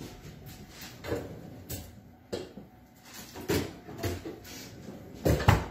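A string of knocks and thuds from a freezer being worked and a pan being put inside, loudest near the end.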